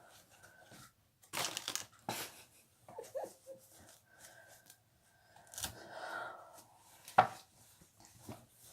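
Rustling and handling noises as a plush microwavable bear is handled and reassembled, with short scrapes and a sharp click about seven seconds in.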